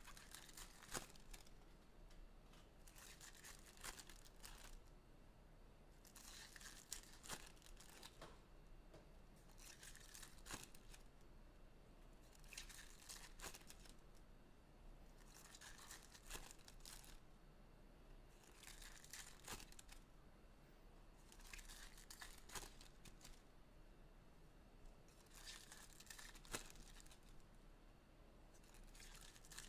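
Trading card packs being torn open one after another, faint wrapper tearing and crinkling in short bursts about every three seconds.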